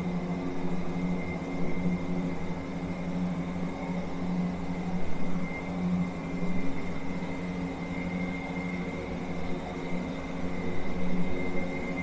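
Steady mechanical hum: an unchanging low drone with a faint, thin high whine above it, like a running motor or ventilation unit.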